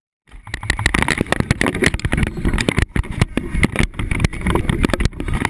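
Handling noise from a GoPro in its waterproof housing being carried and jostled: a steady low rumble with many irregular knocks and clicks, starting suddenly after a brief silence.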